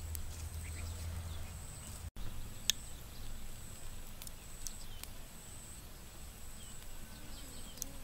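Outdoor ambience with a small wood fire crackling: scattered sharp clicks, the loudest about two and a half seconds in, over a steady thin high insect whine, a low rumble and a few faint bird chirps.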